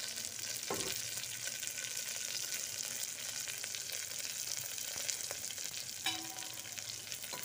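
Sliced onion, ginger, cumin and whole spices sizzling in hot ghee in a pressure cooker, a steady crackling sizzle of the onions starting to fry. A single brief knock comes just under a second in.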